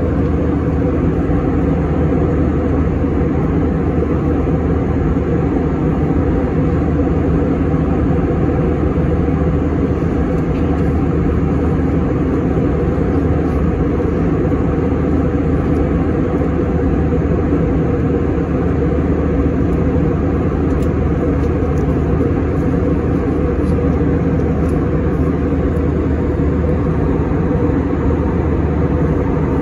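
Steady cabin drone of an Airbus A321 in cruise: engine and airflow noise heard inside the cabin, a low, unchanging rush with a faint hum in it.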